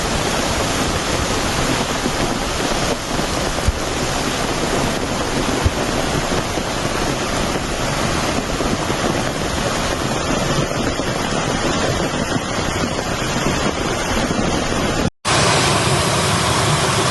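Loud, steady rushing of floodwater. It cuts out for an instant about fifteen seconds in, then resumes.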